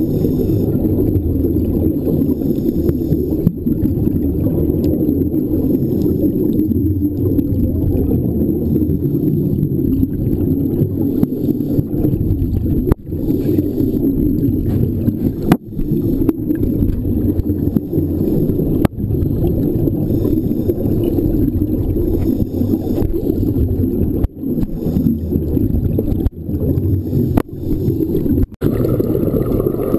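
Steady, muffled underwater noise, a low rumbling wash picked up through an underwater camera's housing on a scuba dive, with a few sharp clicks scattered through it.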